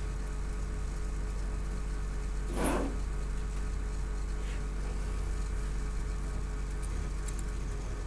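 Steady low electrical hum, with one brief hiss about two and a half seconds in.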